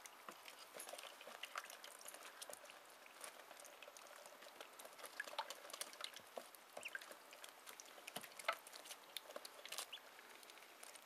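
Two-day-old ducklings at a brooder waterer: faint, irregular ticking and wet splashing of their bills dabbling and pecking, with a few faint peeps.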